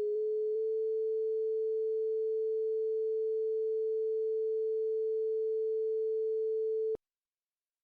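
Synthesised sine-wave tone from the Oscalate synth app, stepping up in pitch in small increments for the first half-second, then holding steady at 440 Hz (concert A). It cuts off suddenly about seven seconds in.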